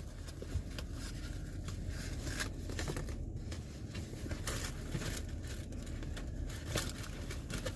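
Cardboard takeout box being opened and its contents handled: irregular rustling, scraping and crinkling of cardboard and paper, with small clicks and taps, over a low steady hum.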